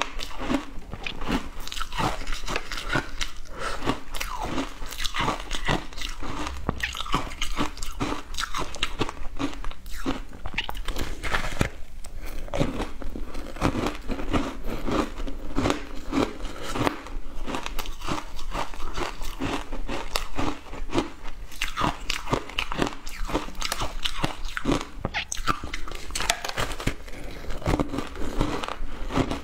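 Shaved ice coated in milk powder being bitten and chewed: a continuous run of sharp, frequent crunches as frozen chunks break between the teeth.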